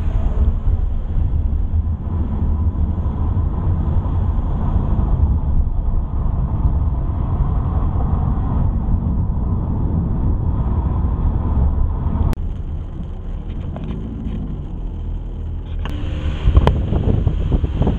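Car driving on a mountain road, heard from inside the cabin: a steady low rumble of engine and tyres. About twelve seconds in there is a click and it turns quieter, and near the end it grows louder, with a few knocks.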